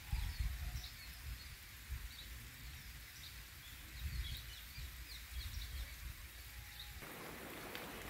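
Small birds chirping in many short, repeated calls over a low rumble. About seven seconds in, the sound switches abruptly to the steady hiss of falling rain.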